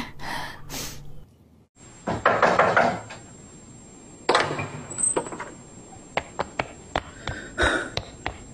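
A door knocking shut with a sharp bang about four seconds in, then quick footsteps on a hard floor, several a second.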